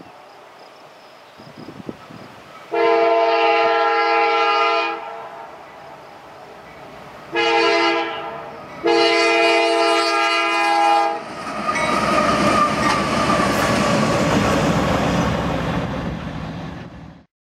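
CSX freight locomotive air horn sounding the end of a grade-crossing signal: a long blast, a short one, then a long one, each a chord of several tones. The diesel locomotives and freight cars then pass with a loud, steady rumble of engines and wheels on the rails, which cuts off suddenly near the end.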